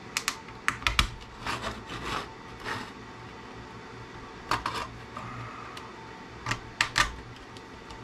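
Screwdriver prying a flat pack component off a CB radio circuit board: a series of sharp clicks and snaps in short clusters, the loudest about a second in and again near seven seconds.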